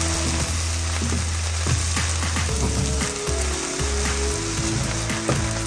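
Fried rice sizzling in a hot pan while a wooden spatula stirs it, with frequent short scrapes and taps of the spatula against the pan. A steady low hum runs underneath.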